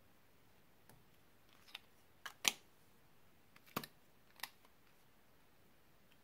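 About seven short, sharp plastic clicks and taps, the loudest about two and a half seconds in, from pencil lip balm sticks and caps being handled.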